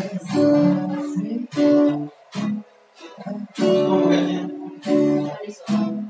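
Acoustic guitar strumming chords in short phrases, with brief stops between them.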